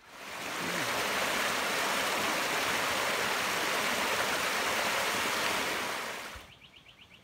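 Small cascade of creek water pouring over rock, a steady rushing that starts suddenly and fades out about six and a half seconds in.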